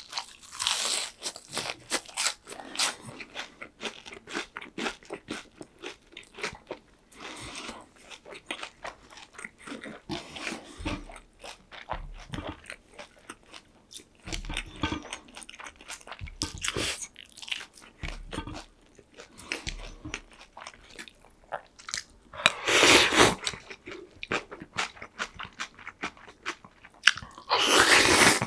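Close-miked eating: crisp, crunchy bites and chewing, as of a breaded fried pork cutlet, in quick irregular clicks. Two longer, louder noisy bursts come about four-fifths of the way through and again at the very end.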